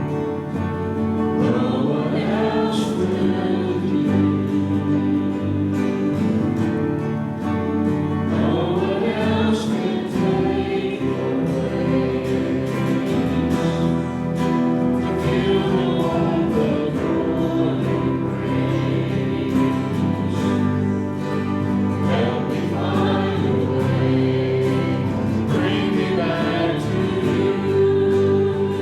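Live church worship band playing a song with voices singing over it.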